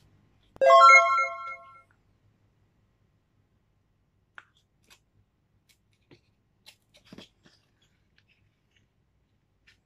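A short bright bell-like chime rings about half a second in and dies away within about a second. After it come a few faint soft clicks and taps from the thick cardboard pages of a board book being turned by hand.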